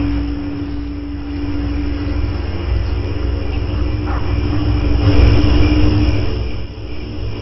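A steady low rumble with a constant hum running under it, without distinct separate events.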